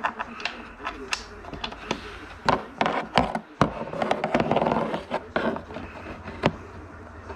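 Hand work on snowmobile parts: irregular sharp clicks and knocks of tools and metal or plastic pieces, with a stretch of scraping and rustling about halfway through.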